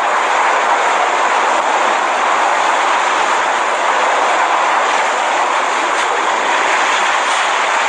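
Hurricane-force wind and driving rain: a loud, steady rushing noise that never lets up.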